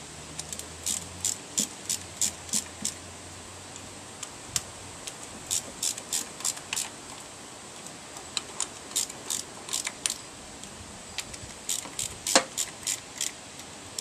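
Small hand ratchet clicking in several quick runs of strokes, about three clicks a second, with pauses between runs, as the ignition coil hold-down bolts on a Toyota 1.5-litre engine are tightened.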